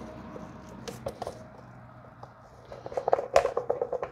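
Small clicks and rattles of metal parts against plastic as the surface cleaner's center hub and spray bar are tightened back together by hand, with a few single clicks and then a quick run of clicks about three seconds in.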